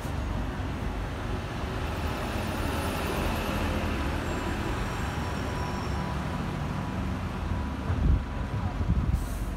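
Busy road traffic: a steady rumble of buses and cars passing along a high street. A brief low thump about eight seconds in.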